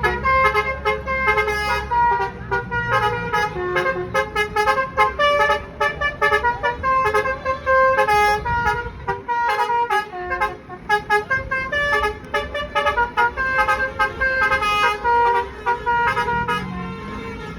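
Indonesian bus basuri musical air horns playing quick melodic tunes, note after note, the buses trading tunes in a horn duel. A low engine rumble runs beneath.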